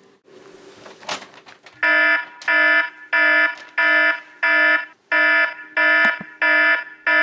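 Electronic alarm beeping loudly and evenly, about one and a half beeps a second, starting about two seconds in, with a short knock just before it.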